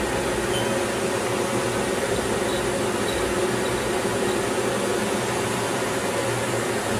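Steady hum of a Haas Mini Mill CNC milling machine running idle, an even drone with no distinct events.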